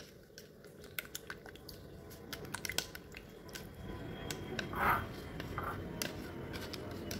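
Metal spoon stirring thick yogurt in a plastic tub, with light clicks of the spoon against the tub and wet squishing of the yogurt, a little louder about five seconds in as the yogurt is scooped out.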